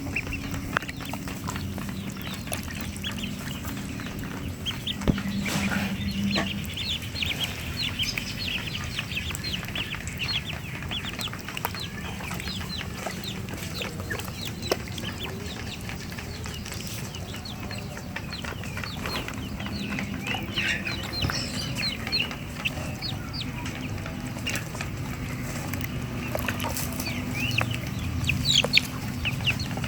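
A brood of young ducklings peeping, many short high cheeps overlapping continuously.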